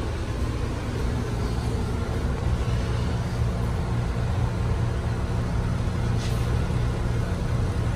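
Steady low hum inside a Metro-North M3A electric railcar standing at a station, from the car's onboard electrical equipment and ventilation, with no rising motor whine.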